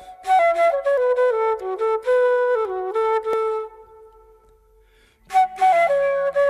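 Background music: a flute melody of stepping held notes that trails off on a long fading note about three and a half seconds in, then starts again about five seconds in over a low sustained drone.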